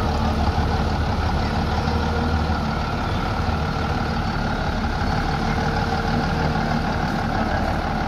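Heavy diesel truck's engine running steadily at low revs as the laden truck creeps forward.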